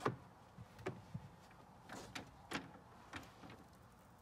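Plastic headliner trim of a Lexus RX350 being pried and pulled down by hand, its clips and panel clicking and knocking: several sharp clicks, the loudest right at the start.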